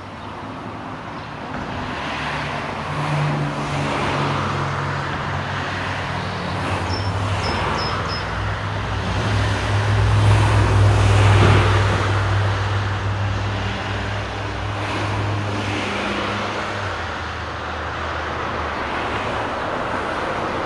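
Road traffic: a motor vehicle's engine running with a low hum that grows louder toward the middle and then fades, over general traffic noise. A few short high chirps come about a third of the way through.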